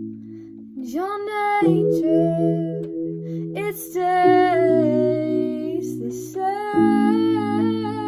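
A woman singing a slow melody of long held notes with vibrato, coming in about a second in, over instrumental chords that change every two to three seconds.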